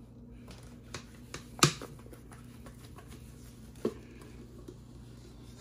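A few sharp clicks and taps of a spatula and metal mixing bowl as thick cake batter is scraped out into a cake pan, the loudest about a second and a half in, over a faint steady hum.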